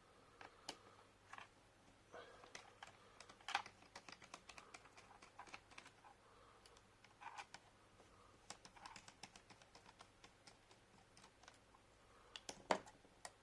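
Faint, irregular small clicks and taps of laptop parts being handled during disassembly, with a louder click about three and a half seconds in and another near the end.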